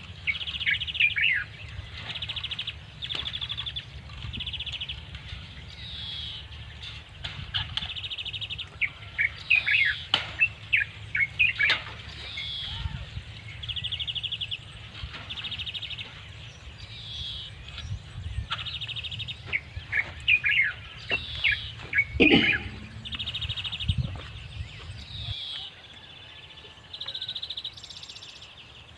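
Small songbirds singing: short buzzy trills repeated about once a second, mixed with quick falling chirps. A few sharp clinks and knocks from the chain-link fencing being handled stand out, the loudest about three quarters of the way in, over a low rumble that stops near the end.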